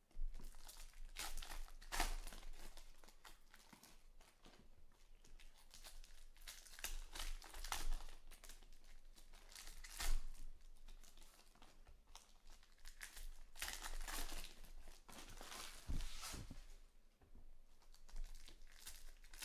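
Foil wrappers of trading-card packs crinkling and tearing in irregular bursts as packs are pulled from the box and ripped open by hand.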